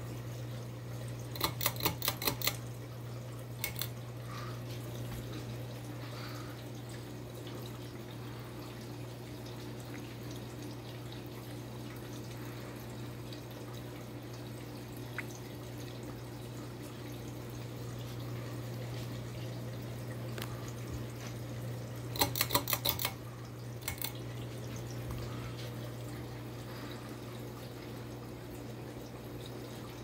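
Crown 52-inch ceiling fan running with a steady low hum. About a second and a half in, and again about 22 seconds in, the light kit's pull chain is pulled: a quick rattle of clicks, switching the light off and then back on.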